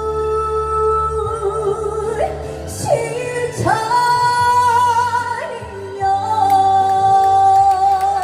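A woman singing the closing line of a Korean song, holding long notes with vibrato over steady accompaniment; her pitch steps up a few times and the final note is held through the end.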